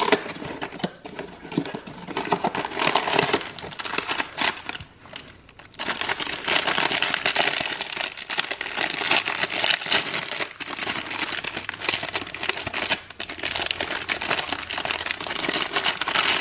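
Clear plastic film wrapper around a frozen sandwich crinkling as hands work it, after the cardboard box is opened at the start. There is a short lull about five seconds in, then steady crinkling.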